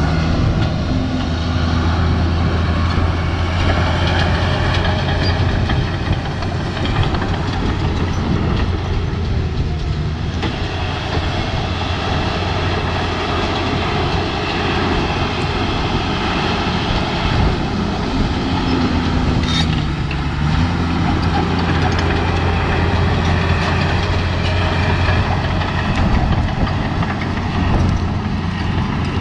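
Heavy equipment engine running steadily with an even, deep hum.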